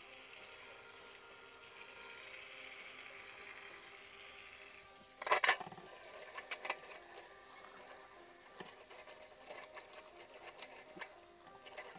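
A garlic chive cake (kuichai) deep-frying in a saucepan of hot oil: a steady sizzle, then a sudden burst of loud spattering crackles about five seconds in, followed by scattered pops and crackles.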